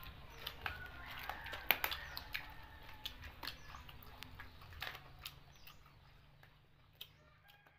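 Scattered soft clicks and smacks of eating by hand: chewing, and fingers picking food off a metal tray. Faint short high chirps and a low steady hum sit underneath, and the sound fades toward the end.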